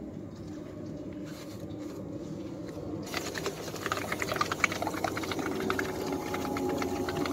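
Air escaping from the inflated balloon through the straw of a homemade balloon-powered boat. It starts faint and steady, then about three seconds in turns into a rapid sputtering rattle that grows louder.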